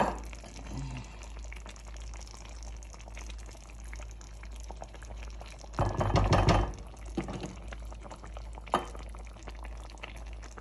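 A pot of okra soup simmering, with a soft liquid bubbling. There is a louder clatter lasting under a second about six seconds in, and a single click near the end.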